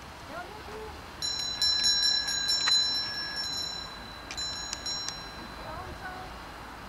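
Last-lap bell on a track lap-counter board rung repeatedly, signalling the final lap to a race walker. It rings in two bouts with a short pause between them, a clear ringing tone with a series of strikes in each bout.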